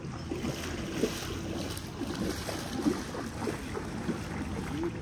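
Water sloshing and splashing as people wade through a shallow pool, with a couple of sharper splashes, over wind buffeting the microphone.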